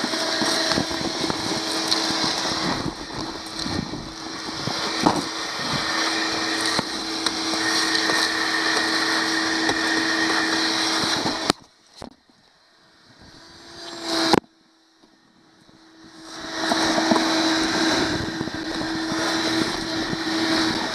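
Shop vacuum running steadily with a held hum, sucking wood chips and debris off a boat's plywood floor through its hose, with scattered clicks and knocks. It switches off a little past halfway, whirs up briefly and cuts out again, then starts up and runs again for the last few seconds.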